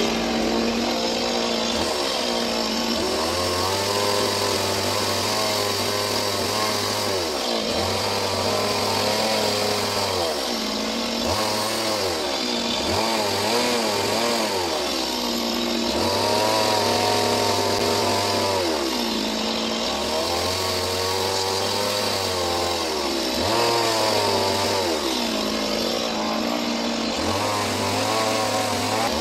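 Two-stroke chainsaw carving into a wooden log, revving up under the cut and dropping back over and over, its pitch rising and falling every few seconds.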